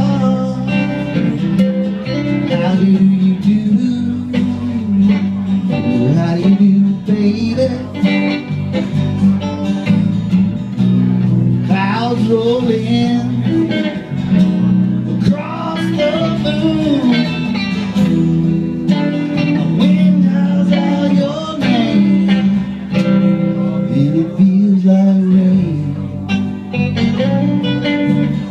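Live band playing a slow blues-country song: electric and acoustic guitars with bass and drums, with bending lead-guitar notes over the chords.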